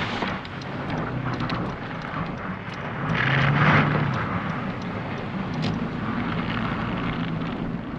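Car driving on a snow-covered road: steady engine and tyre noise, swelling louder for about a second around three to four seconds in.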